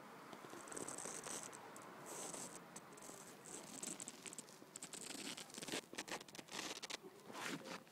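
A mother cat licking her newborn kitten clean: faint, rapid wet licking and rustling of fur, with clusters of short soft clicks.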